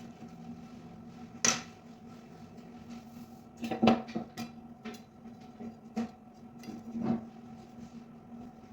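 Kitchen utensils knocking and clinking, about six separate knocks, the loudest about a second and a half in and near four seconds, over a faint steady hum.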